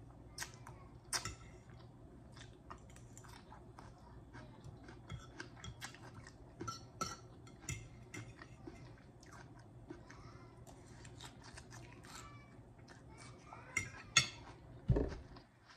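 A person chewing fried fish balls close to the microphone: irregular wet mouth clicks and smacks, with a few louder clicks and a low thump near the end.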